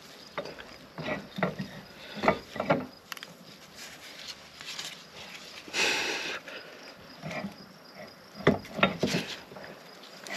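Irregular metal knocks and clunks as gloved hands work the belt pulley and housing of a disc mower gearbox, with a short scraping rustle about six seconds in.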